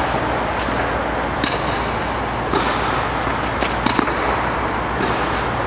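Tennis balls struck by a racket and bouncing on an indoor court: a handful of short, sharp pops, several close together near the middle, over a steady hum and hiss.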